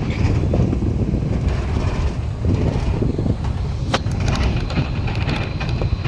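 Steady engine and road rumble heard inside the cabin of a moving car, with one brief sharp click about four seconds in.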